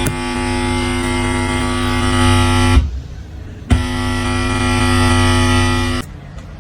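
Loud electrical buzz from a Roland SPD-30 drum pad's audio output, the noisy buzzing fault: a steady hum with many overtones that cuts out with a click about three seconds in, comes back with another click a second later, and stops again near the end.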